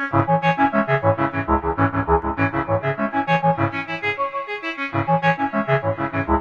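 Sequential Pro 3 analog synthesizer playing a fast sequenced pattern of short, plucked notes, about seven a second, over a low-pitched line; the low notes drop out briefly about five seconds in.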